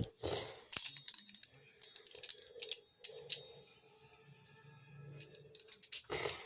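Viper Tech VT-Balihoo balisong being flipped: its metal handles and pins click and clack in quick irregular runs, with a quieter stretch in the middle and a dense flurry of clicks near the end.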